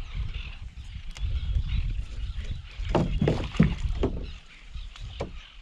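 Low rumble of wind on the microphone, with a few short knocks and handling noises around the boat between about three and four seconds in.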